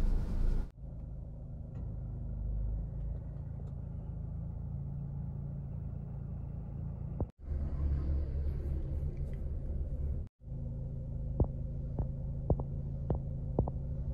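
A car engine running, a steady low rumbling hum that cuts out abruptly twice. Near the end there are several light clicks.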